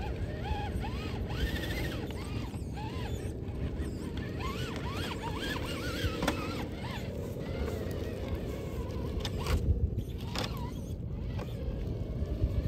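Traxxas TRX-4 RC crawler's brushless motor whining in many short rising-and-falling bursts as it is throttled on and off, over a steady low rumble, with a few sharp clicks.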